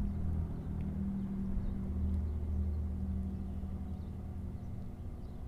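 An engine running steadily with a low, even hum that fades slightly near the end.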